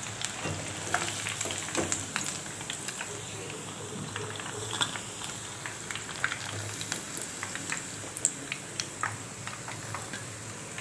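Hot oil sizzling with many small pops and crackles as spice-battered chicken 65 pieces deep-fry, fried through to their golden colour and ready to be lifted out.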